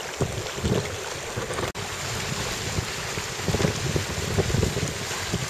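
Wind buffeting the microphone over the rush and slap of water along the hull of a sailing dinghy under way, in irregular gusts.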